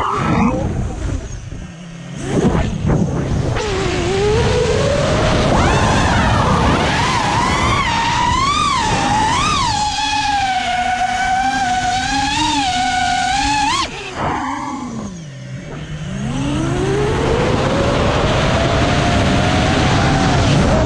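An FPV racing quadcopter's brushless motors whine, the pitch rising and falling with the throttle. The whine drops away briefly twice, about two seconds in and again around fourteen seconds, then climbs in a long, steady rise near the end.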